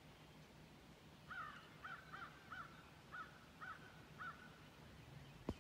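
A crow cawing about six times in a steady series, roughly one call every half second, over faint outdoor background. A single sharp knock sounds just before the end.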